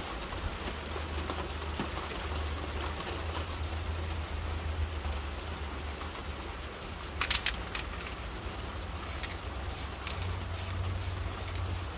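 Steady rain patter with a low rumble underneath. About seven seconds in comes a brief clatter of sharp clicks, the loudest sound. From about nine seconds, quick short spurts of hiss from an aerosol spray-paint can being tapped to spatter paint.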